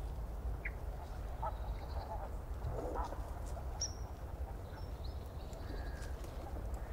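Steady low hum with a few faint, short chirps and calls scattered over it.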